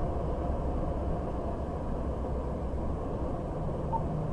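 Steady low rumble of engine and road noise from a vehicle cruising on a highway, picked up inside the cabin by a dashcam microphone.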